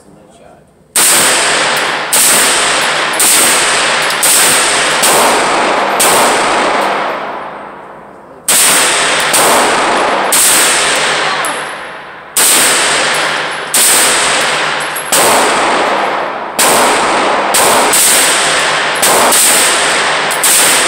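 CZ Scorpion Evo S1 carbine fired semi-automatically: a string of single shots, roughly one a second, each ringing on in the echo of the concrete range lane. There are two short pauses, a third and about halfway through.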